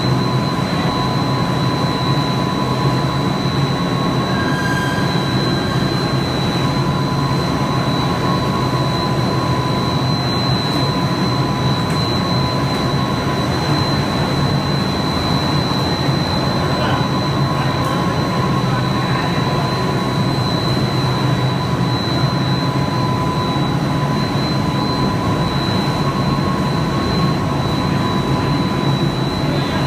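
Snack pellet production line machinery running: a steady mechanical din with a strong low hum and thin, steady high-pitched whines over it.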